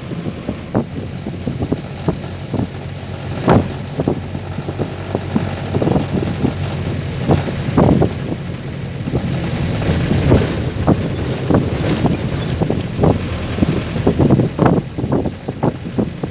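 Mercedes-Benz LO 814 minibus (Marcopolo Senior body) driving at a steady pace, its diesel engine droning low while the body and fittings rattle and knock over and over.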